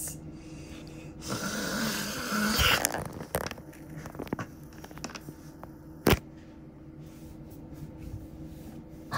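Snoring, a rasping snore of a second or so starting about a second in, then scattered sharp clicks and knocks from plastic dolls being handled, the loudest single click about six seconds in.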